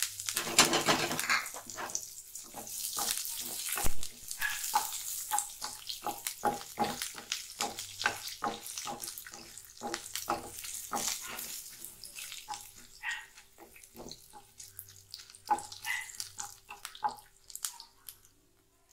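Curry leaves, chillies and ginger hitting hot oil in a kadai: a burst of sizzling as they go in, then crackling and spluttering with many short pops as a spatula stirs them through the frying dals and peanuts. This is the tempering being fried.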